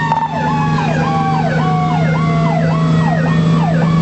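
Fire engine siren sounding on an emergency run: a fast electronic yelp rising and falling about twice a second. Over it a second siren tone slides slowly down in pitch, all above the steady drone of the truck.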